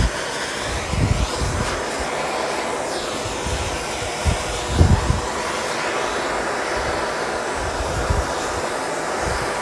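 Handheld gas torch burning with a steady hiss while it heats lead body solder on a bare steel car body. A few low thumps sound around one second and five seconds in.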